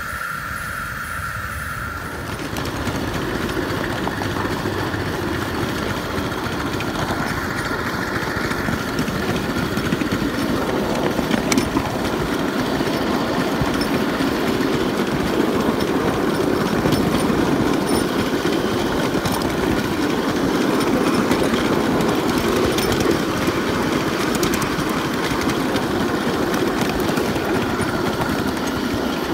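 Ride-on live steam miniature locomotive running along the track: a steady rattle of wheels on rail mixed with steam noise from the engine. It gets louder about two seconds in as the train gets going.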